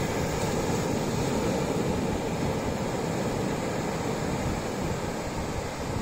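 Ocean surf: small waves breaking near the shore and washing up the sand in a steady rushing noise.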